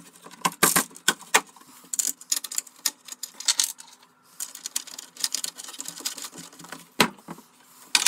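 Irregular metallic clicks and clinks of washers, nuts and a spanner on a coach bolt as a wooden broom-handle handle is fastened through a cupboard door, with light knocks of wood on wood. One sharper knock comes about seven seconds in.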